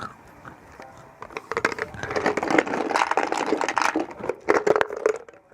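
Eating sounds close to the microphone: crunching and crackling with many small clicks, loudest in the middle seconds and dying away near the end.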